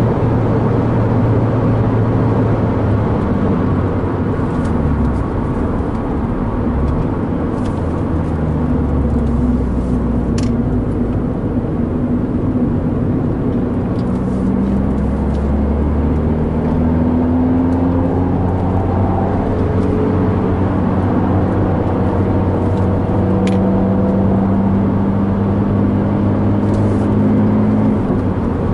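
Abarth 124 Spider's turbocharged 1.4-litre four-cylinder engine running under varying throttle, heard from inside the cabin over road and tyre noise. The engine note rises and falls with the driving, and there are a couple of sharp clicks.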